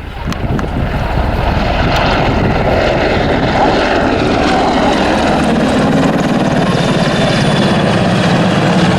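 Royal Navy Merlin (AgustaWestland AW101) helicopter in display flight: steady, loud rotor chop with the hiss and whine of its turbine engines.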